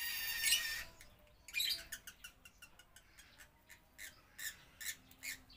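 A bird squawks loudly and harshly for under a second, then short, sharp chirps come scattered through the rest of the time.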